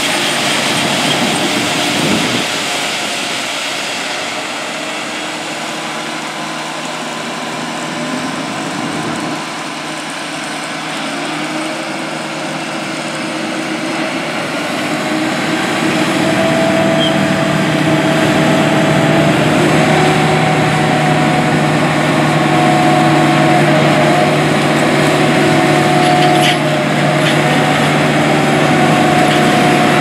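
Heavy diesel farm machinery running steadily: a Case IH Steiger 620 Quadtrac tractor working a Kinze grain cart, whose auger is unloading shelled corn into a semi trailer. From about 16 seconds in, the tractor is pulling the cart across the field and its engine is louder, with a steady hum.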